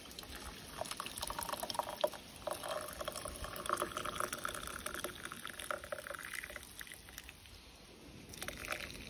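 Hot ginger tea poured through a fine wire-mesh strainer, splashing and trickling into the cup below. The stream fades to a trickle near the end.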